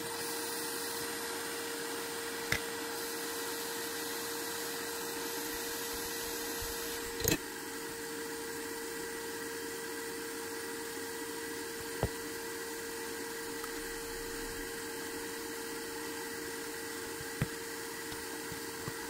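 A small electric motor-driven tool running with a steady hum and hiss. A few sharp clicks sound over it, the loudest about seven seconds in.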